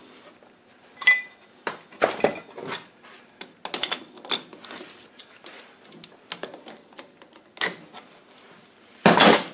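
Steel hand tools clinking and scraping as a tool tube is slid off a gearbox's splined shaft and an adjustable spanner is worked on the threaded rod screwed into the shaft end: scattered light metallic clicks and knocks, with a louder clatter near the end.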